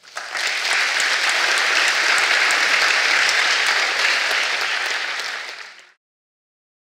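Audience applauding, a dense, even clapping that fades away near the end and stops about six seconds in.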